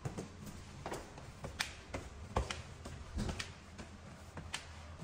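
Irregular light knocks and taps of someone walking through an empty room carrying a phone, footsteps and handling noise, over a low steady room rumble.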